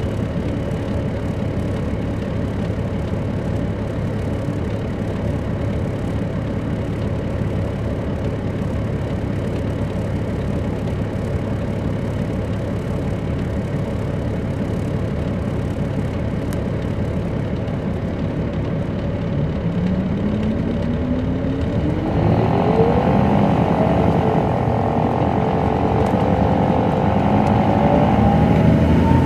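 Caterpillar C13 ACERT diesel of a 2007 MCI D4500CL coach running steadily at idle, then pulling away about twenty seconds in: the engine gets louder and a whine climbs steadily in pitch as the bus accelerates.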